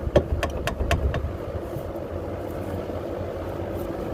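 A quick run of sharp metallic clicks and knocks from hand tools and brake hardware being handled, over about the first second. Under it, a steady mechanical hum runs on.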